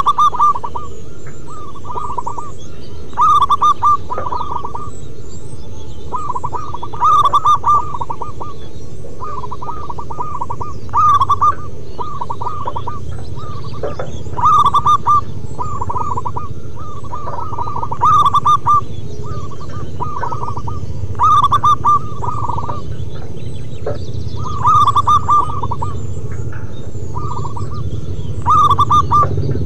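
Zebra doves (perkutut) cooing: rapid, stuttering trilled phrases that come in loud bursts every three to four seconds, several birds' songs overlapping. Under them runs a steady low rumble and a faint constant high whine.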